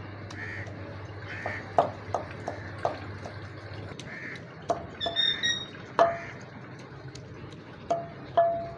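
Wooden pestle pounding strawberries in a clay mortar (kundi danda): irregular knocks about once a second, some ringing briefly off the clay bowl. Birds call in the background.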